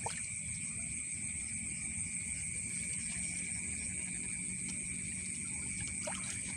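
Chorus of crickets and other night insects trilling steadily in unbroken high-pitched tones, over a low background rumble.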